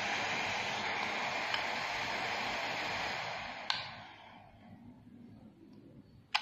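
Cooling fan of a handheld IPL hair-removal device running with a steady whir; a click a little under four seconds in, after which the fan winds down and stops.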